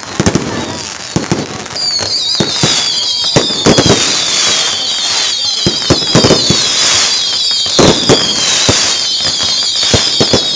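Firecrackers going off in irregular sharp bangs. From about two seconds in, a high wavering whistle-like tone repeatedly slides down in pitch, about every two seconds.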